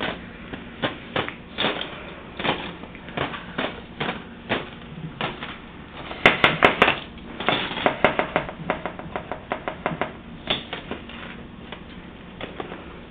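Irregular sharp taps and clacks of hard objects, a few a second, with a quick loud flurry about six seconds in.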